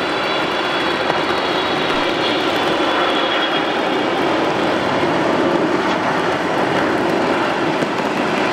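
Boeing 777 jet engines running steadily through a landing flare and touchdown, with a faint high whine that sinks slightly in pitch over the first few seconds.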